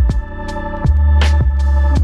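Electronic cinematic background music with deep bass, sustained synth chords and a steady drum beat.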